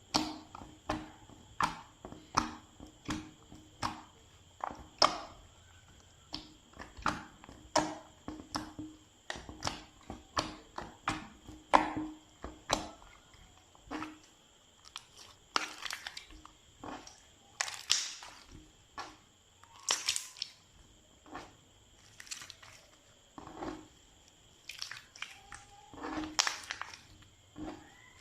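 Slime being pressed and squished by hand, making a string of sharp crackling pops and squelches, roughly one or two a second and uneven in strength.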